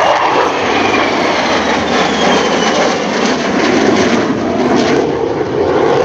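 Loud jet noise from a pair of EA-18G Growlers, twin General Electric F414 turbofans each, on a high-speed formation pass overhead. A high whine slides down in pitch as the jets go by and pull away.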